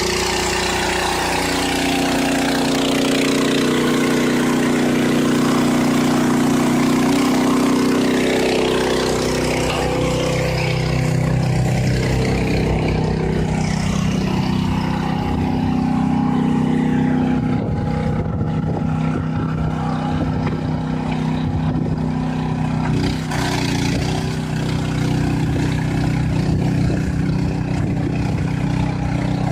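Farm machine's engine running, its pitch shifting up and down several times as it works.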